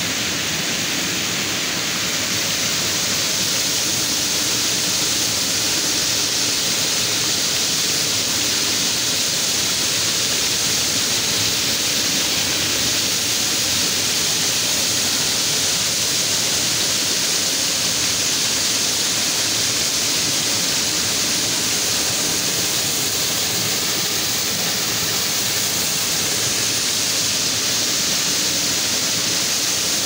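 Water rushing steadily out of a stone watermill's wheel chamber, the stream's flow released after turning the mill wheel. It grows a little louder about two seconds in.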